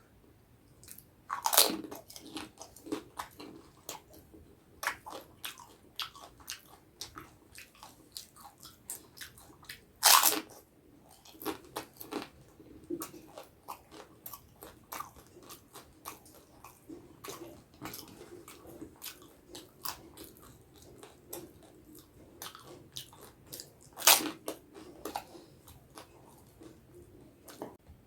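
Close-up eating sounds: a crisp fried snack crunching and crackling as it is bitten and chewed, with three loud crunching bites about a second and a half in, about ten seconds in and near the end.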